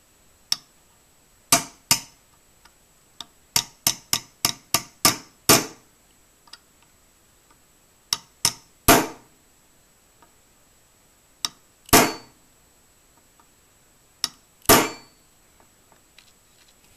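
Pin punch being struck to drive a roll pin flush into an AR-15 lower receiver: sharp metallic taps in irregular groups, with a quick run of about six a few seconds in, then pairs and single blows.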